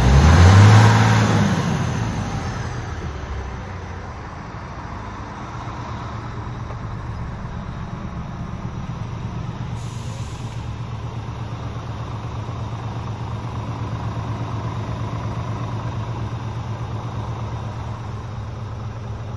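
Scania R450's 13-litre six-cylinder diesel engine: its revs rise and fall in a brief loud surge about a second in, then it settles into a steady idle.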